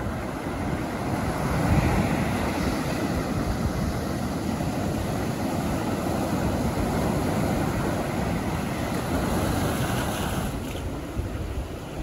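Ocean surf breaking and washing up a sandy beach and around old wooden pilings, a steady rushing wash. It swells loudest about two seconds in and eases off near the end.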